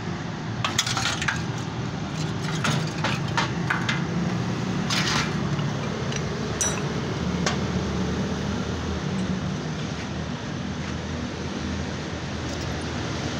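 Scattered light metallic clinks and taps from steel seat-frame pieces being handled, most of them in the first five seconds. Under them runs a steady low hum and background noise.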